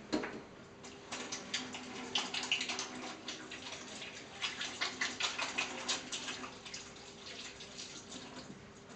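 Hands being washed under a running tap in a stainless steel sink: water splashing irregularly as the hands rub and lather under the stream, busiest in the middle and easing off towards the end.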